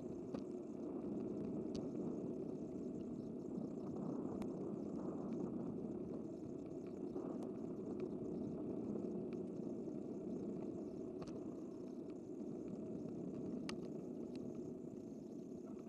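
Steady rumble of riding noise from a bicycle-mounted camera: tyre and wind noise, with a few faint clicks scattered through.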